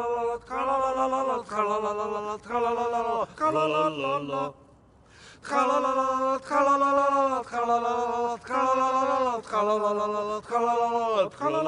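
Two men singing a cappella in a chant-like style: a series of held notes, about one a second, with a short pause about four and a half seconds in.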